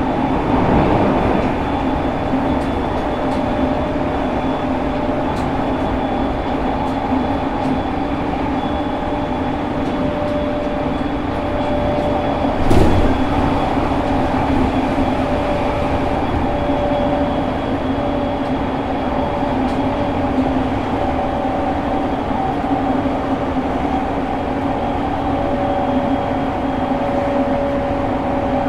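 Onboard running sound of a JR East E217 series EMU motor car, which has a Mitsubishi GTO inverter and MT73 traction motors. The train runs at a fairly steady speed: a steady motor and gear whine sounds over wheel-on-rail rumble. A single loud thump comes about 13 seconds in.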